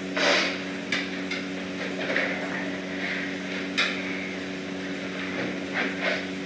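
A few scattered knocks and clicks of things being handled, with a short rustle right at the start and the sharpest click nearly four seconds in, over a steady low hum.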